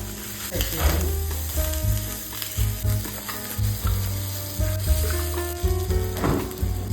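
Background music with a deep bass line and held notes, over a steady sizzling hiss.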